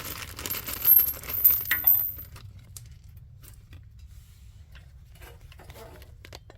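Small steel studs from an exhaust install kit clinking and jingling together in the hand, several sharp metallic clinks with a high ring in the first two seconds, then faint scattered clicks of handling.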